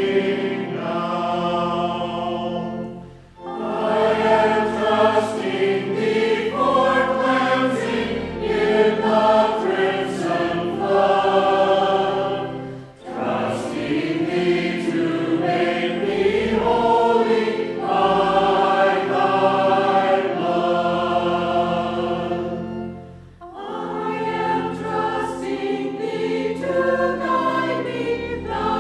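Mixed choir of men's and women's voices singing a hymn in long phrases, with brief breaks between phrases about every ten seconds.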